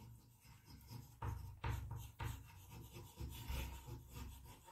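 Chalk writing on a blackboard: faint, uneven scratching strokes as letters are written, starting about a second in.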